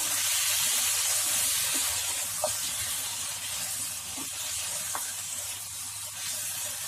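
Chicken masala sizzling on high flame in a nonstick wok as a wooden spatula stirs it, a steady hiss that eases a little toward the end, with a few light spatula ticks; the gravy is being fried down until dry.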